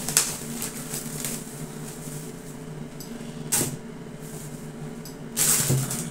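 Plastic produce bag rustling as oranges are handled, in three short bursts: one at the start, one about three and a half seconds in, and a longer one near the end. A faint steady hum runs underneath.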